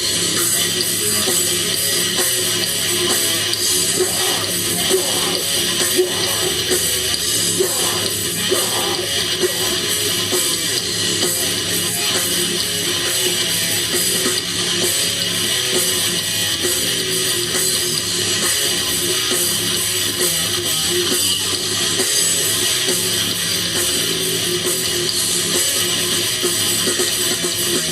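Live rock band playing loud and dense: distorted electric guitar over bass and drums, continuing without a break.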